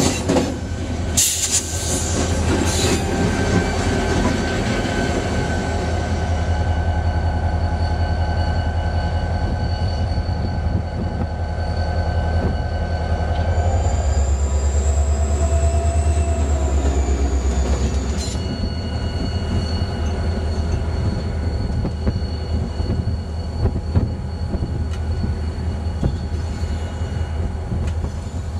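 CSX EMD GP40-2 diesel locomotive running by slowly on its own, with a steady low engine rumble and long, steady high-pitched wheel squeal. A few sharp clanks in the first three seconds as the wheels pass over rail joints.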